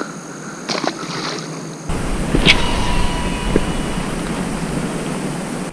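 Steady rushing wind and water noise outdoors, with a deep wind rumble on the microphone that comes in suddenly about two seconds in.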